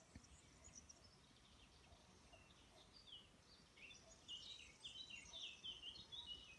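Small birds chirping quietly, with a quick run of high chirps over the last two seconds or so.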